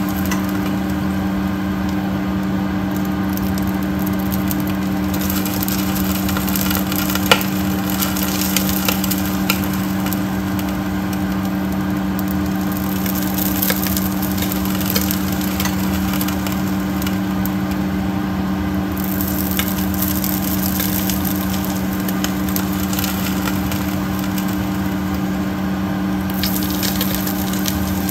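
Rolled pork belly skin sizzling and crackling as hot oil is poured over it, with scattered sharp pops as the skin blisters and puffs up crisp. A steady low hum runs underneath.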